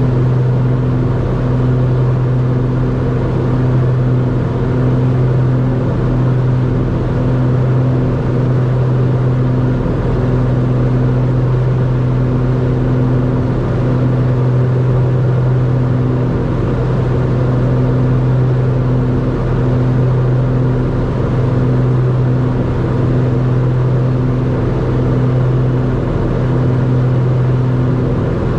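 Twin turbocharged Lycoming six-cylinder engines and propellers of a 1975 Beechcraft B60 Duke running steadily in flight: an even, unbroken drone with a slight slow waver.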